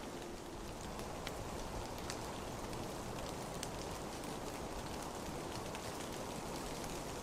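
Rain falling steadily: an even hiss with scattered sharp drop ticks.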